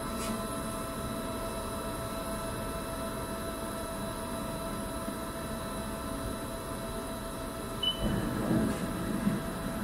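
1998 Haas VF-4 CNC vertical mill running, a steady whine of the spindle and drives over a low mechanical rumble. About eight seconds in, a louder, rougher rumble sets in.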